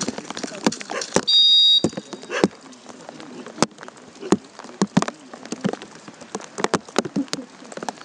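A whistle blown once in a short steady blast a little over a second in, during a ring-sport bite exercise with a Bouvier des Flandres. Scattered sharp ticks and taps follow.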